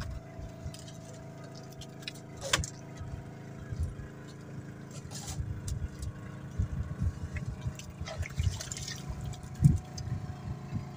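Small boat engine idling steadily, with scattered knocks and rattles over it and one sharp knock near the end.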